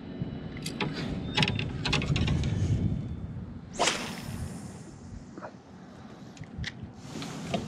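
A fishing rod swishing through a cast about four seconds in, after a run of sharp clicks and knocks from gear being handled.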